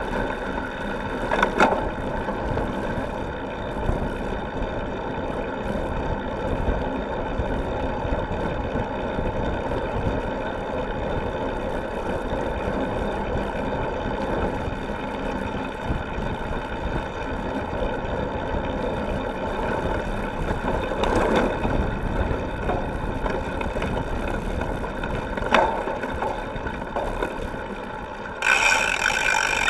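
Cyclocross bike rolling over a gravel and dirt track, heard from right beside the rear wheel: a steady rumble and crunch of the tyres with frame and drivetrain rattle, and a few sharp knocks over bumps. Near the end the noise jumps suddenly louder and harsher.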